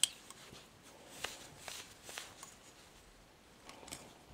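Knitting needles clicking lightly and yarn rustling as stitches are worked by hand, with a few scattered soft clicks.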